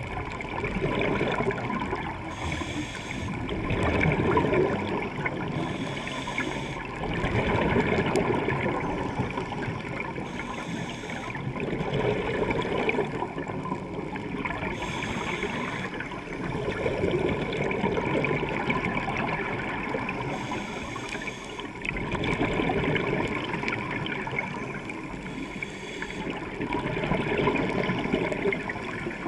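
A scuba diver breathing through a regulator underwater: a short hiss on each inhale, then bubbles rising on the exhale, repeating about every four to five seconds.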